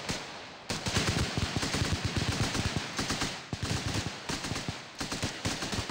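Rapid gunfire from several M16-pattern rifles firing live rounds, shots overlapping in dense volleys that start under a second in, ease off briefly around the middle and pick up again.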